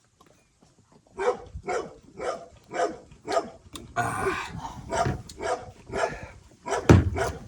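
A dog barking repeatedly, about two barks a second, starting about a second in.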